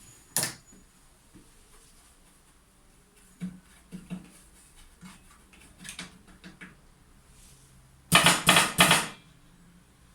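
Steel cigarette rolling machine being worked by hand: a sharp click, then scattered small metal clicks and knocks, then three loud rasping strokes in quick succession near the end.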